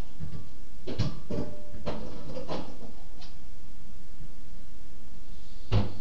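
Several irregular knocks and bumps over a steady background hiss, the loudest one near the end.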